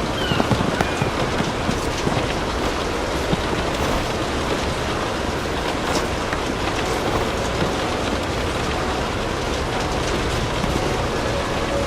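Steady rain with the scattered pops and crackles of a wood fire burning in a fireplace.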